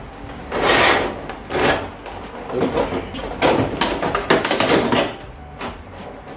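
Rigid clear plastic clamshell packaging being handled and pried apart, crackling and knocking in several short irregular bursts.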